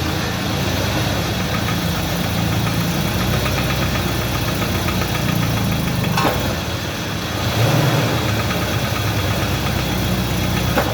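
UAZ Patriot engine running under load against the handbrake, with a rhythmic knock in time with the crankshaft. The mechanic finds it very like piston slap.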